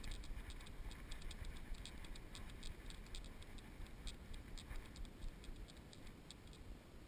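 Faint, irregular light ticks and small rattles, a few each second, from a camera rig strapped to a walking dog, over a low rumble of movement on the microphone.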